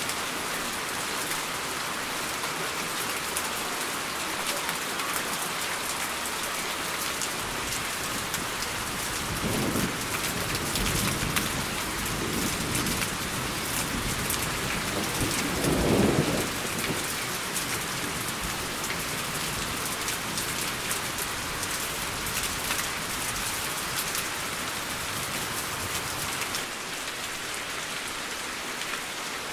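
Steady rain falling, with a long roll of thunder. The thunder rumbles in about a quarter of the way through, is loudest near the middle and dies away well before the end.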